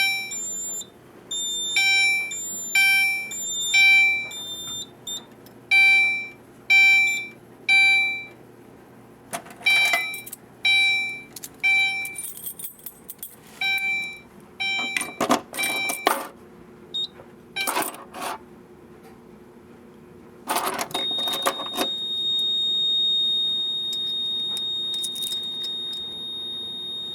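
Fire alarm horns sounding in alarm in the temporal code-3 pattern: three short high-pitched blasts, a pause, then again, stopping about fifteen seconds in among clicks and clattering. About twenty seconds in, a steady high-pitched tone from the fire alarm control panel's piezo sounder starts and holds.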